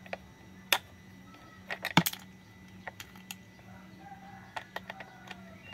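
Plastic clicks and knocks from a toy screwdriver turning a wheel screw on a plastic take-apart toy train, with parts tapping against each other; a louder cluster of clatters comes about two seconds in, then lighter scattered clicks.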